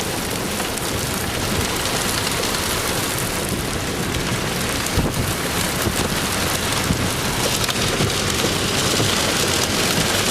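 Small hail and heavy rain pelting down in a supercell storm: a dense, steady patter of countless small impacts.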